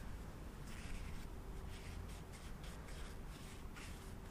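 Paper towel rustling and rubbing in short, irregular strokes as a small carburettor part is wiped clean by hand.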